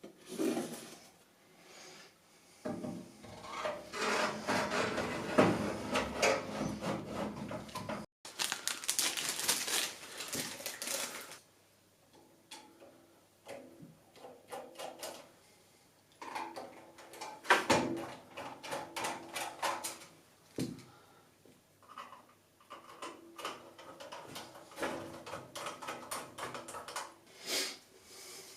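Hands handling computer parts and their packaging: irregular clicks and knocks with stretches of scraping and rustling.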